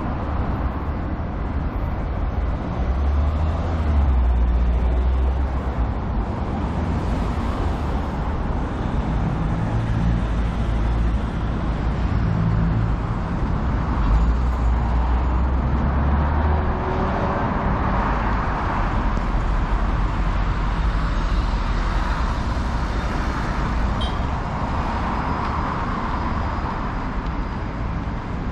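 City road traffic: a continuous wash of passing vehicles, with deeper engine rumbles swelling about three seconds in and again around the middle.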